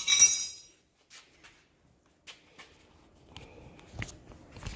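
A sharp metallic clink of a wrench against a tie rod lock nut, dying away within half a second, then faint shuffling and handling noises with a soft knock near the end.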